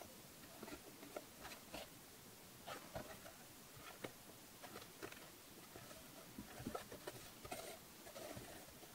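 Faint, scattered clicks and rustles of leather being hand-stitched: a needle pushed through the stitching holes and thread drawn through and pulled tight.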